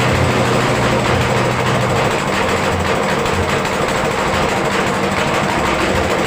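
Peanut threshing machine running steadily, a continuous mechanical motor drone.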